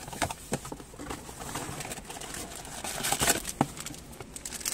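Cardboard packaging and a plastic bag being handled: scattered short rustles and taps as an OBD2 cable in its bag is pulled out of the box, the loudest about three seconds in.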